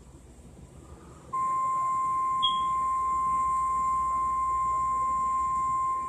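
NOAA Weather Radio warning alarm tone: a single steady 1050 Hz tone that starts about a second in and holds, played through a computer's speakers. It signals that a warning broadcast follows. A brief higher blip sounds over it about two and a half seconds in.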